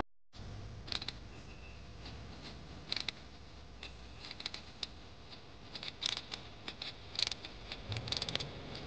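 A cloth rag rubbing over a brush cutter's metal engine and clutch housing as it is wiped clean by hand: faint rubbing with scattered small scrapes and clicks, coming in short clusters.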